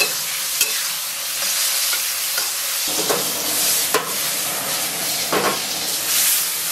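Sliced shiitake mushrooms sizzling in oil in an iron wok, being stir-fried, with a metal spatula scraping and clacking against the wok a few times as it is tossed.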